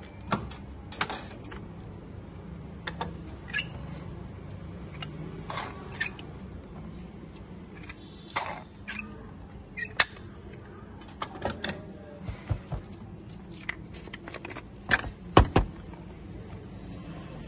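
Irregular clinks, taps and knocks from making lemon soda by hand: a wooden lemon squeezer, a glass and a long metal spoon handled on the cart. The loudest quick clinks come a few seconds before the end, when the spoon is stirring in the glass.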